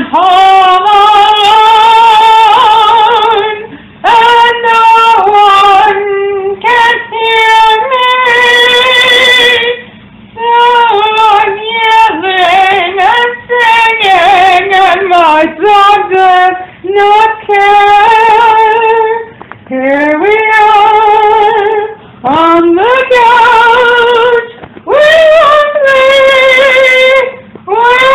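A woman singing high, wordless held notes with heavy vibrato, in phrases of two to four seconds broken by short breaths. Several notes scoop up from low into the held pitch.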